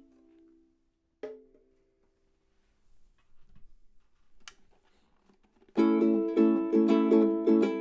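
Koa soprano ukulele strung low G: a chord rings out and fades, a single note is plucked about a second in, then after a near-silent pause strummed chords start up about six seconds in, about two strums a second.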